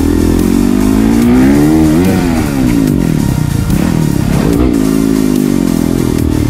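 Dirt bike engine under throttle. The revs climb to a peak about two seconds in and drop away, then rise again near five seconds.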